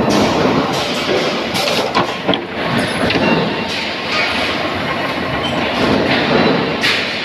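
Loud, steady mechanical din of sheet-metal stamping presses running, broken by several sharp metal knocks.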